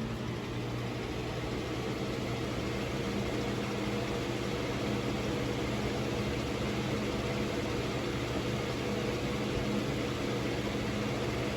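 Holmes HABF-25 20-inch box fan running on medium speed: a steady motor hum over the rush of moving air, a few steady tones in it. It grows slightly louder over the first few seconds as it comes up to speed, then holds steady.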